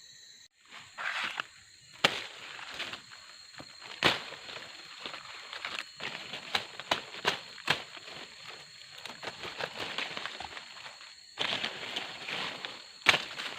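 Irregular sharp clicks and knocks with bursts of rustling, over a steady high-pitched insect drone.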